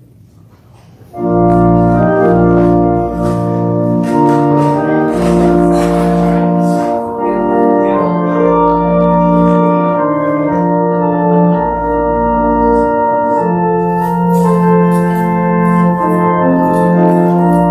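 Church organ playing slow held chords over long, deep bass notes, starting suddenly about a second in.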